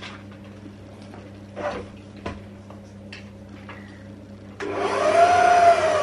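Electric stand mixer with a balloon whisk: a couple of light knocks as its tilting head is lowered, then, about four and a half seconds in, the motor switches on suddenly and runs loudly with a whine that rises and dips in pitch.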